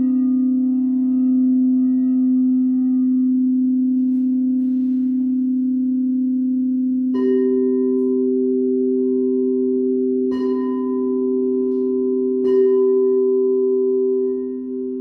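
Singing bowls: one steady low tone sustained throughout, while a second, higher-pitched bowl is struck about seven seconds in and twice more a few seconds apart, each strike ringing on.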